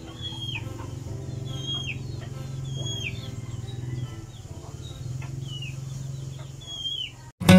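A bird repeating a short falling call about once every second and a half, over a steady low hum; the sound cuts out just before the end.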